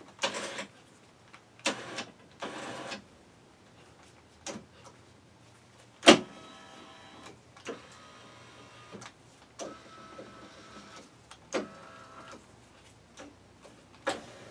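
Chevrolet Trailblazer power seat motors running in short bursts, with a sharp click about six seconds in and several seconds-long stretches of steady motor whine. The seat is being worked with its memory-position sensor harness unplugged, and it still moves.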